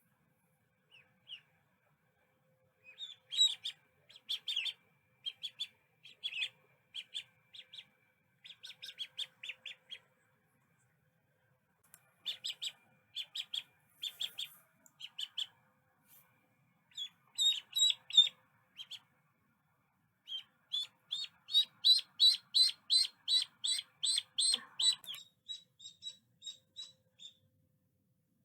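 Ducklings peeping: runs of short, high chirps in bouts with pauses between them, getting faster and louder about three quarters of the way through.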